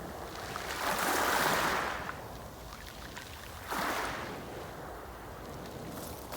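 Sea waves breaking and washing on the shore: a long surge about a second in, then a sharper one that comes in suddenly near four seconds and fades, with a steady wash of surf between.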